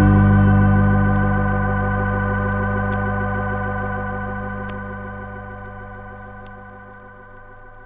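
Organ holding the final chord of a gospel instrumental, slowly fading away over several seconds with a slight regular waver.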